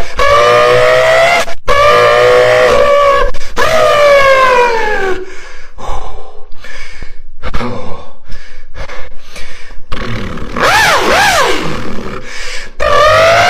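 Beatboxer's voice imitating a car engine: pitched revs that climb and drop as if shifting gears, then a choppy run of short pops and clicks, then quick up-and-down wails, and another rising rev near the end.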